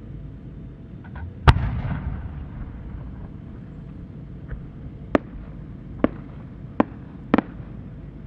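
A 10-gou (about 30 cm) aerial firework shell fired from its mortar: one loud, sharp launch bang about a second and a half in, with a rumbling echo. It is followed by four quieter sharp pops less than a second apart, from the small effects on the shell's rising tail.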